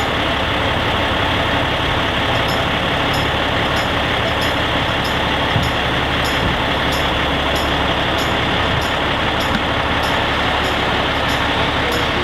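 Diesel engine of a semi truck idling steadily, with a faint high tick repeating about every two-thirds of a second.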